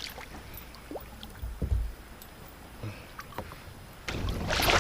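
Light knocks and handling noises in a fishing kayak, with a rushing noise starting about four seconds in.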